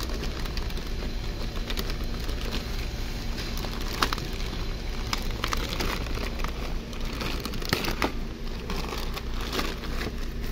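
Thin plastic bag crinkling and tearing as it is pulled open by hand, with irregular sharp crackles, the loudest about four seconds in.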